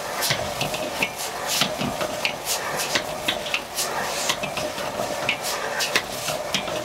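A metal ladle scraping and clanking against a wok as chow mein noodles are stir-fried over a high gas flame, with a steady sizzle and a hum underneath.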